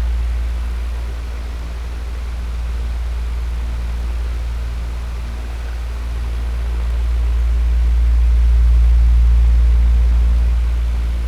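Electric fan running: a steady rush of air over a deep low hum. The loudness slowly dips and swells, easing off about a second in and rising again near the end.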